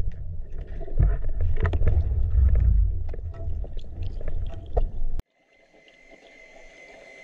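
Underwater sound picked up by a diver's camera: a loud low rumble of water movement with scattered clicks and knocks. About five seconds in it cuts off abruptly to a much quieter hiss with a faint steady high tone.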